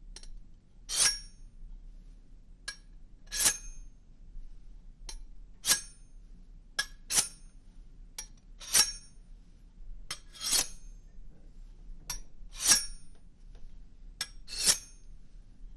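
Sharp, bright glassy clinks repeating at uneven intervals, a louder one about every two seconds with fainter ticks between, over a faint low hum.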